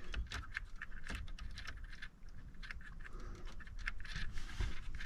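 Faint, irregular small clicks and light rattling of plastic and metal parts being handled: an add-a-fuse tap being turned around and pushed into a slot of the Ford Bronco's under-hood fuse box.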